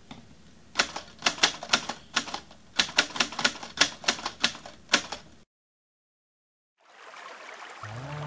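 Typewriter keys striking in quick, irregular runs of clacks, about twenty in all, which cut off abruptly about halfway through; music then fades in near the end.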